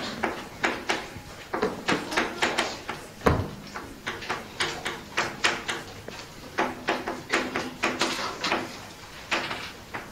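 Chalk writing on a blackboard: a rapid run of sharp taps and short scrapes as characters are stroked out, several a second, with one heavier knock about three seconds in.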